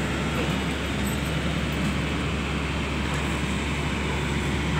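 Heavy machinery running steadily: an unchanging low engine drone over a constant wash of industrial noise.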